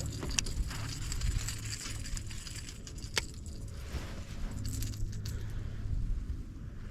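Small metal objects jingling and clinking, with two sharp clicks, over a low rumble.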